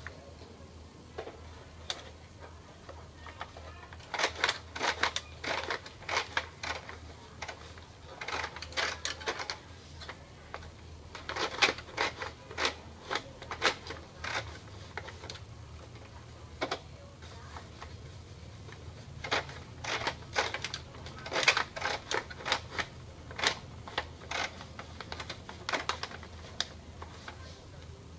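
Irregular bursts of plastic clicks and rattles from the opened mechanism of an Epson L210 inkjet printer as its parts are worked by hand, with quiet gaps between the bursts.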